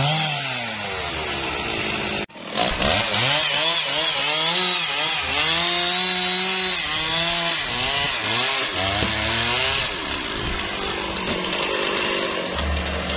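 Stihl two-stroke chainsaw revved up and down over and over, its pitch rising and falling, then settling to a lower, steadier run near the end. The sound breaks off briefly about two seconds in.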